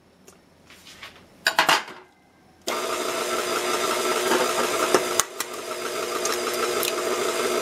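KitchenAid stand mixer switched on about two and a half seconds in, its motor running at a steady whir as the flat beater creams butter and sugar. A brief clink comes before it starts, and a single sharp tap about halfway through.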